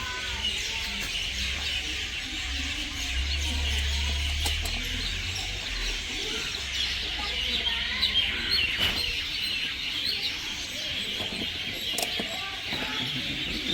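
Many small birds chirping continuously, over a low hum, with a few light clicks.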